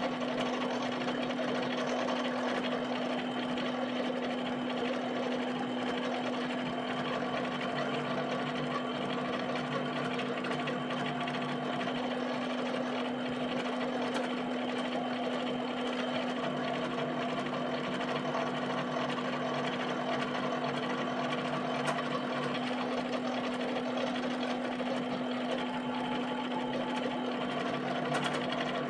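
HP 7585B pen plotter running, its motors whirring steadily as it moves the pen about plotting dots, over a constant low hum.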